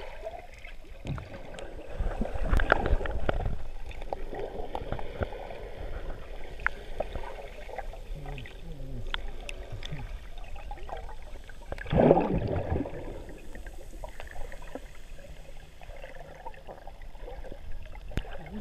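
Muffled underwater water noise heard through a submerged camera: a low sloshing and gurgling wash with scattered faint clicks, surging louder about two to three seconds in and again around twelve seconds.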